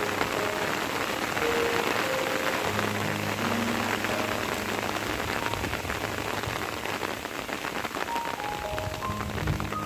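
Steady rain falling, a dense hiss of many fine drops, under soft background music whose held notes come in over the first few seconds and again near the end.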